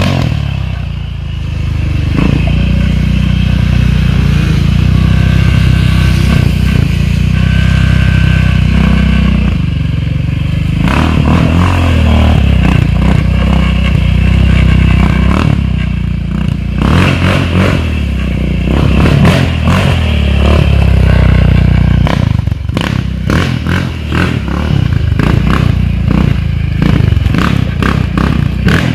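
Yamaha Raptor 700 ATV's single-cylinder engine, fitted with a twin-outlet exhaust, running loud under hard riding on dirt, its revs rising and falling again and again.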